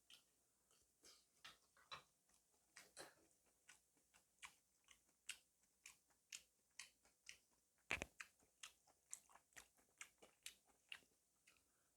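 Close-miked chewing: quiet, short mouth clicks and smacks about two to three a second, with one louder knock about eight seconds in.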